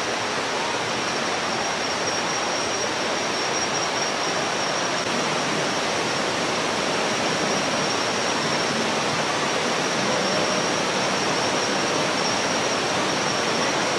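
Rocky rainforest river rushing steadily over boulders and through rapids, with a thin, steady high tone above the water noise.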